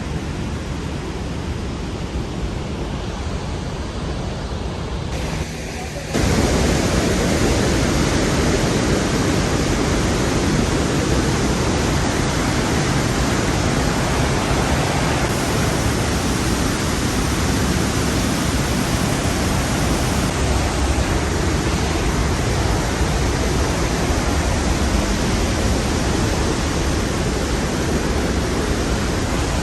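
Glacial meltwater of Trümmelbach Falls rushing and cascading through the rock gorge: a steady, dense roar of falling water. About six seconds in it jumps suddenly louder and fuller, as if much closer to the torrent.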